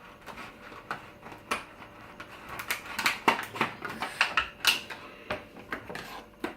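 Plastic parts of a Transformers action figure clicking and snapping irregularly as the figure is twisted and transformed by hand.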